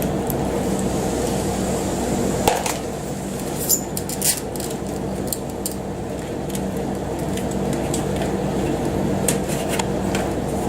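A steady mechanical hum from a running machine, with scattered clicks and clinks of handling over it; the sharpest clinks come a few seconds in.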